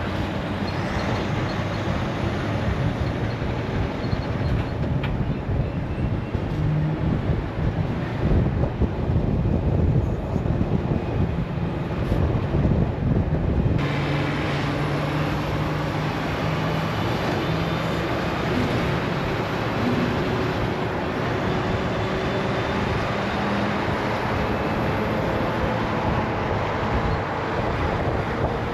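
Heavy-haul semi truck on the road: diesel engine running steadily under road and wind noise. Partway through, a sudden rise in hiss joins it, and the engine pitch climbs slowly near the end.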